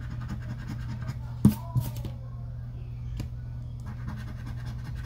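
Scratch-off lottery ticket being scratched with a round scratcher tool: quick rasping strokes that stop for a moment in the middle and start again near the end. A sharp knock about a second and a half in is the loudest sound, and a steady low hum runs underneath.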